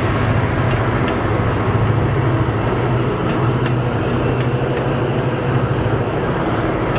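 MARC commuter train's diesel locomotive running under power as the train pulls out, a steady low engine drone with rolling-stock rumble and a few faint clicks.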